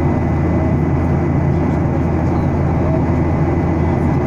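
Steady, even drone inside the cabin of a Boeing 737-800 in flight: the CFM56-7B turbofan engines and the rush of air, deep and constant, with a thin steady high whine.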